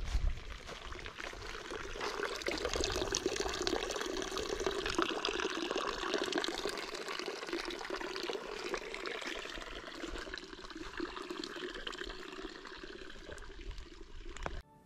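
A thin stream of water pouring from a pipe spout into a concrete trough, a steady splashing trickle that cuts off suddenly near the end.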